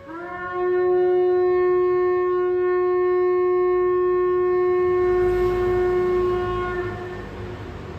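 Shofar sounding one long blast. The note scoops up in pitch at the start and holds on one tone for about seven seconds before dying away.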